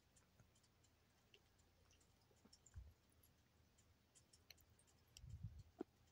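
A cat licking at the sipper tube of a gerbil water bottle, making faint, irregular clicks, with a few soft low knocks in the second half.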